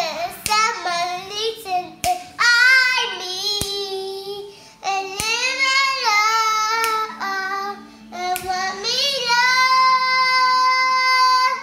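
A young girl singing unaccompanied, the melody rising and falling phrase by phrase, finishing on a long held note near the end.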